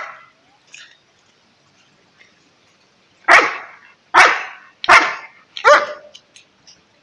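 A dog barking four times in quick succession, a little under a second apart, about three seconds in; the last bark ends on a falling note.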